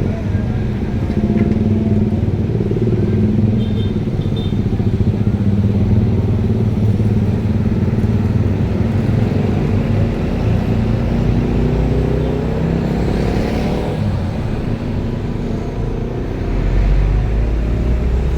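Roadside traffic: vehicle engines, large buses among them, running and passing close by, with engine notes sliding in pitch partway through. A deep engine rumble swells near the end.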